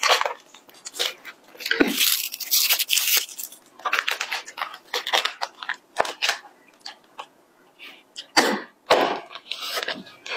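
Thin plastic drink bag crinkling and rustling in irregular bursts as it is handled, with a few sharp clicks as a straw is pushed into it.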